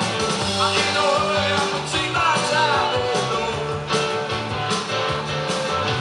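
Rock song with singing and guitar, played back from a cassette on an Akai GX-F95 cassette deck.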